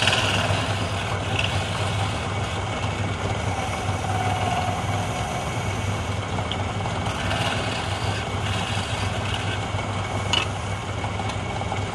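Wood lathe running with a steady motor hum while a hand chisel cuts the spinning wooden workpiece, giving a rough scraping hiss that comes and goes. A sharp tap sounds about ten seconds in.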